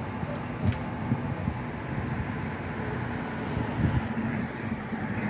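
City street traffic noise: a steady low hum of vehicles at the intersection with a few faint clicks, and the noise of a vehicle growing near the end.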